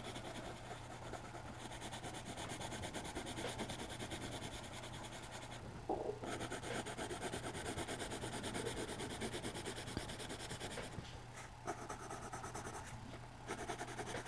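Coloured pencil shading on drawing-pad paper: a rapid scratchy rubbing of short back-and-forth strokes, with a few brief pauses.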